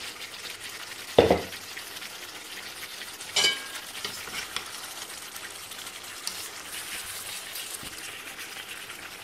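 Chicken pieces sizzling in hot spice paste in a metal pot while a slotted metal spatula stirs and fries them in the masala. A dull thump comes about a second in, and a ringing metallic clang of the spatula against the pot about three and a half seconds in, with a few light scrapes and clicks after.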